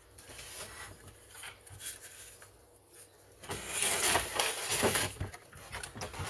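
Knocks, clicks and rattling from a Stihl 031AV chainsaw's plastic housing and handle as a stuck handle is worked loose by hand, with a denser burst of clattering from about three and a half to five seconds in.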